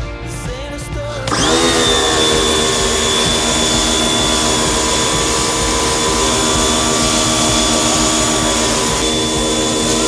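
A power tool's motor spins up about a second in, its pitch rising quickly, then runs steadily at a constant speed with a high whine.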